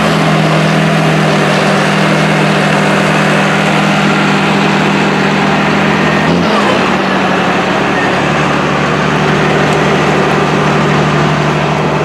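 John Deere 8520T track tractor's 8.1-litre diesel engine running loud and steady while pulling a reel disk through the field, heard close from the cab step over the rushing noise of the rubber tracks and the disk in the soil. The engine note briefly dips and settles slightly lower about six seconds in.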